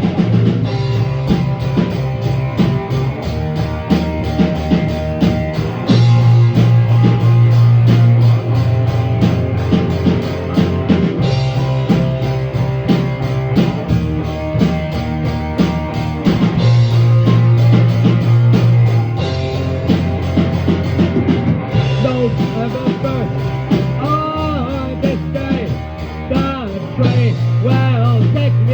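Instrumental break of a rock band demo: electric guitar, bass guitar and drum kit playing, the bass holding long notes that change every couple of seconds. Near the end a lead line comes in with bending, wavering notes.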